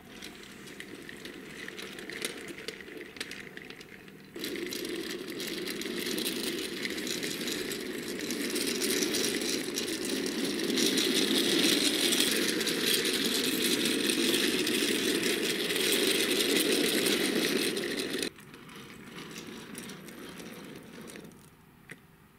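Small wheels of a die-cast toy truck rolling on a wooden floor, pushed by hand: a steady rattling rumble with fine clicks. It jumps louder about four seconds in, stops abruptly a few seconds before the end, and a fainter rolling sound then fades out.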